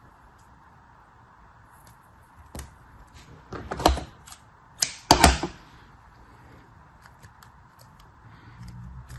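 Packaging being handled and opened: a few sharp clacks and short rustling clatters, the two loudest about four and five seconds in, with faint ticks between them.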